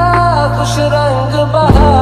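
Background music: a song with a held, gently gliding melody over a steady deep bass, and a low drum hit near the end.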